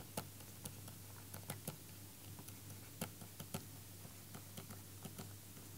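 Faint, irregular clicks and taps of a stylus on a pen tablet while words are being handwritten, over a low steady hum.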